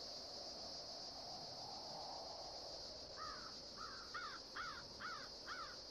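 A crow cawing six times in quick succession, about two caws a second, starting about halfway through, over a steady high insect drone.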